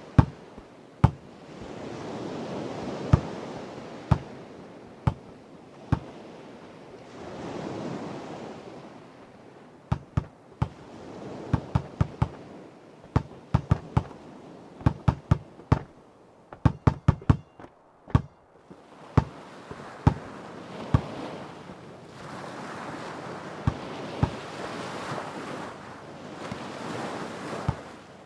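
A basketball bouncing on hard ground: sharp thuds, sometimes single and sometimes in quick runs, over sea waves washing in and receding. The waves swell several times, with a long stretch of surf near the end.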